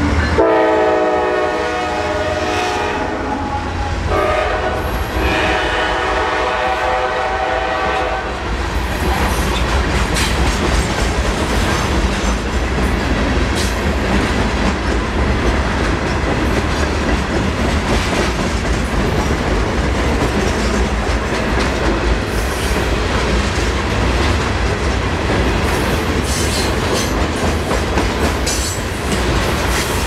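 Norfolk Southern diesel freight locomotive's multi-chime air horn, a Nathan K5LA, sounding for a road crossing as the locomotives pass. The horn holds for about eight seconds, broken once about four seconds in. It then stops and the freight cars roll by with a steady wheel rumble and clickety-clack over the rail joints.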